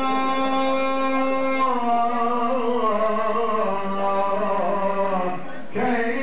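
A man's melodic Islamic chanting: a long held note that then moves through ornamented turns, with a short breath break near the end before the voice carries on.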